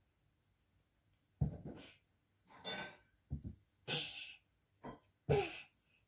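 A child's short, breathy exhalations and effort sounds while exercising, about half a dozen in a row, the loudest about five seconds in.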